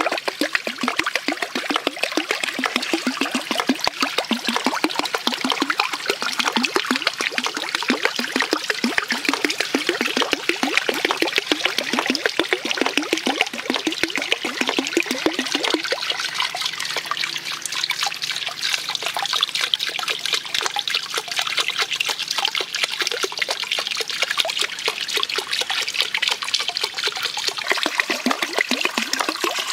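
Water running and splashing steadily, a continuous trickling patter that thins in its lower part about halfway through.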